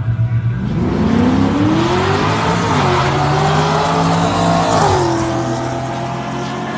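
Chevy 350 small-block V8 in a Toyota Land Cruiser Troopcarrier launching hard down a drag strip, revs climbing steadily with two upshifts of its manual gearbox, about two and a half seconds and about five seconds in, where the pitch drops and climbs again.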